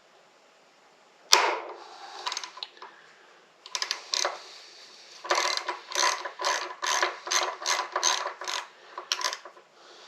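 Hand ratchet wrench clicking as it backs out the front axle pinch bolt on a motorcycle fork leg. A single sharp snap comes about a second in, then scattered clicks, then a steady run of ratchet clicks about three to four a second.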